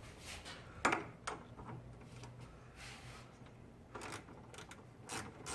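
Irregular clicks and knocks of parts being worked by hand during airbox removal, the loudest about a second in.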